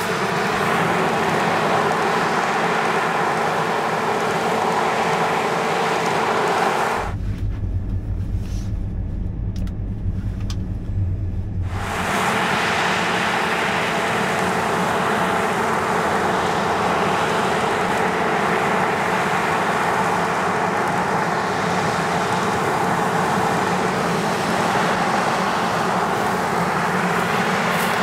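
Combine harvester and tractor engines running steadily under harvesting load, with a constant mechanical hum. About seven seconds in, the sound drops for some five seconds to a deep low rumble alone, then the full machine noise returns.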